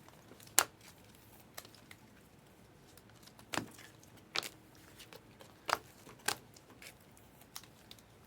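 Trading cards and foil packs being handled on a table: a series of sharp, separate taps and clicks, about eight in all, the loudest under a second in.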